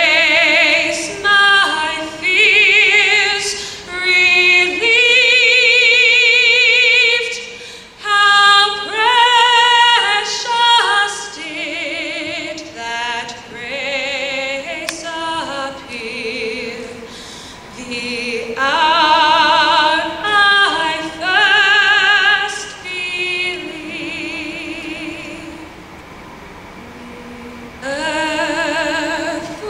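A young woman singing solo into a microphone, phrases of long held notes with a wide vibrato, softer for a few seconds near the end before she picks up again.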